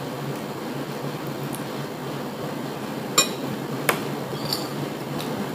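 Two sharp clinks of tableware, a fork or dish knocking against a plate or glass, about three and four seconds in, over a steady background hum.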